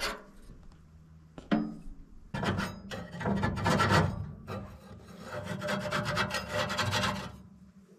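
Rough scraping and rubbing in two stretches, about two and three seconds long, over a faint steady hum.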